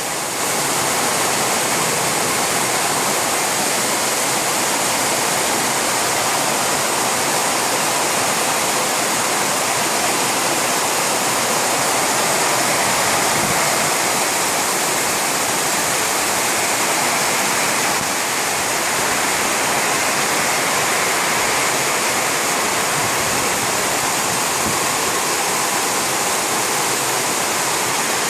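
Heavy tropical downpour: torrential rain hissing steadily and evenly on the ground and surfaces, loud and unbroken.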